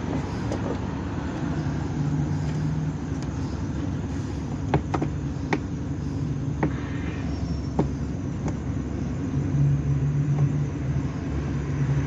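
A few scattered light clicks of metal as the brake wire is hooked onto the spin-dryer brake lever of a Hitachi washing machine, over a steady low background rumble.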